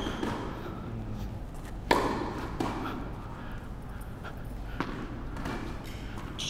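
Tennis ball being struck by rackets and bouncing on an indoor court in a rally: a few sharp pops, the loudest about two seconds in and another near five seconds, each with a short echo in the hall.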